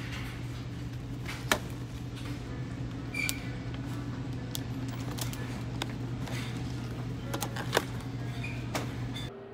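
Clear plastic bakery clamshell containers clicking and crackling as they are handled and set into a shopping cart, a handful of sharp clicks, the loudest about a second and a half in and near the end. Under them runs a steady low hum of store background noise.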